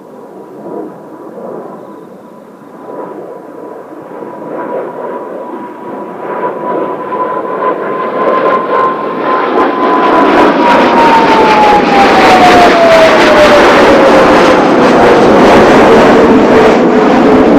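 Four Kawasaki T-4 jet trainers flying over in formation: their turbofan roar builds from faint to very loud over about ten seconds, and their whine drops steadily in pitch as they pass overhead.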